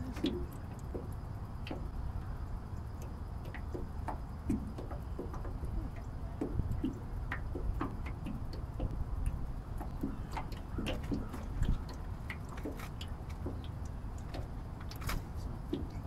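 Water lapping and plopping against the bow of a 14-foot jon boat, with many scattered light ticks and clicks over a steady low rumble.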